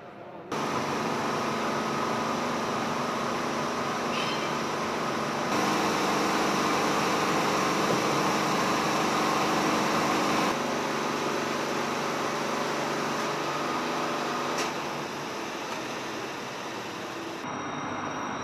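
Steady mechanical hum and whir of machinery and ventilation in a large assembly hall. It starts abruptly about half a second in and jumps up or down in level several times.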